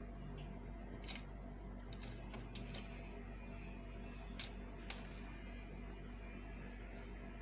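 A few light, sharp clicks and soft fabric handling as straight pins are worked through the fabric to pin a placket down; the loudest clicks come about four and a half and five seconds in. A low steady hum runs underneath.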